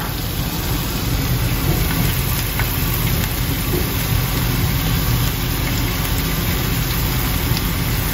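Sweet peppers and oyster mushrooms sizzling steadily on a hot griddle pan, over a steady low hum.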